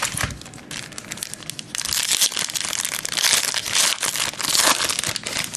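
Foil trading-card pack wrapper being torn open and crinkled by hand, a dense irregular crackling that grows louder about two seconds in.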